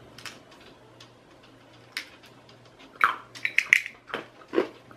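A couple of faint clicks, then about three seconds in a quick run of short, loud non-speech vocal noises, some high-pitched: a reaction to tasting cat food.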